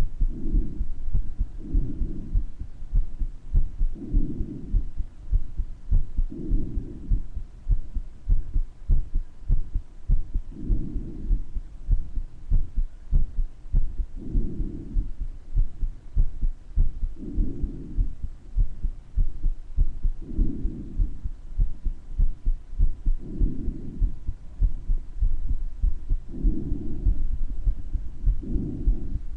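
A person's heartbeat with a heart murmur: steady, repeating low thuds. Over them come breath sounds that swell every two to three seconds.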